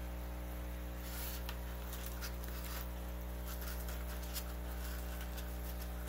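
Steady low electrical hum, with faint scattered clicks and rustles as hands press clay-pebble-filled net pods into a styrofoam raft; one slightly louder click near the end.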